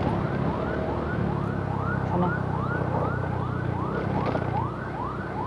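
Ambulance siren wailing in quick rising sweeps, about three a second, over a motorcycle's engine and road noise.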